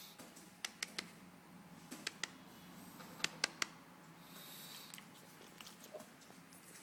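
Pug snoring in its sleep: a breathy hiss a little past the middle, among small clusters of sharp clicks.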